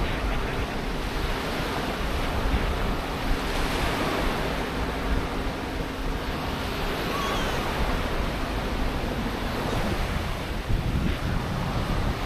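Small waves washing up onto the sand at the shoreline, with wind blowing over the microphone.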